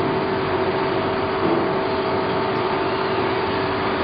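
Straight knife blade grinder running, its motor-driven cup wheel grinding along a straight knife blade: a steady machine whir with a few constant pitches held throughout.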